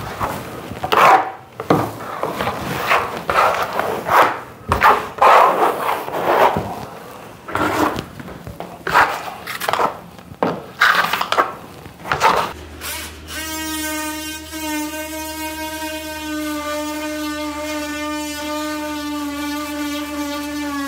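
A flat trowel scraping cement-based feather-finish floor patch across a wooden subfloor in repeated strokes. About thirteen seconds in, a cordless oscillating multi-tool starts and runs steadily with an even, high-pitched buzz.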